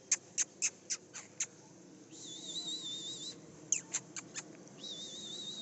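Puppies squeaking and whining: a quick run of short high squeaks, then a long wavering whine, a few more squeaks, and another wavering whine near the end.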